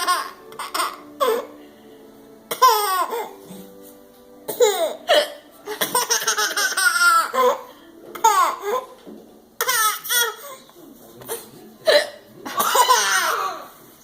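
A baby laughing in repeated bursts of giggles and belly laughs, with short hiccups among them; the laughter is set off by the hiccups.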